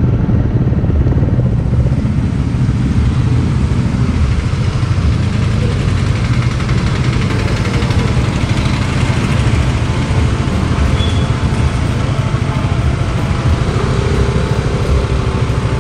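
Sport motorcycle engine running steadily at low revs, a constant low rumble, as the bike rolls slowly and waits in traffic.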